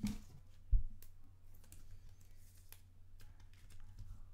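Trading cards and rigid plastic top loaders handled on a table: scattered light clicks and taps, with one louder thump a little under a second in, over a low steady hum.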